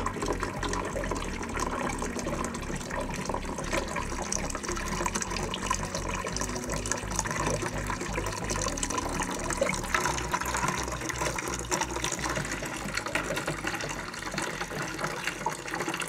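Water pouring in a steady stream from a water heater's brass drain valve into a plastic bucket, splashing as the bucket fills.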